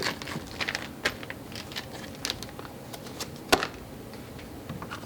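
Scattered light clicks and taps of parts and tools being handled during a fuel rail install, with one sharper knock about three and a half seconds in.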